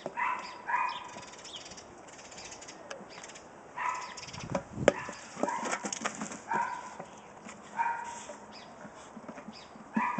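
A pit bull giving short barks about once a second while it wrestles a car tyre, with scattered rubbery knocks and scuffs and one sharp knock about five seconds in.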